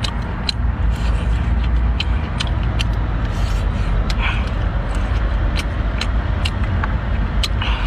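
Close-miked eating of sea snails: about a dozen sharp, irregular clicks of shell and teeth. Underneath runs a steady low rumble.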